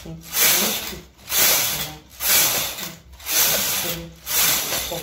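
Knitting machine carriage pushed back and forth across the needle bed, knitting row after row: a hissing, rattling rush on each pass, about one pass a second.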